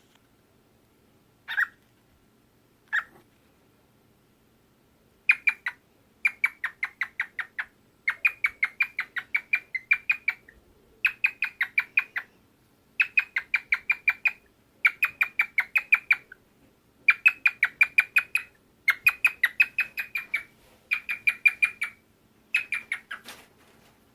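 Cockatiel calling: a few single chirps, then, from about five seconds in, a long series of rapid chirp runs, each about a second long and separated by short gaps.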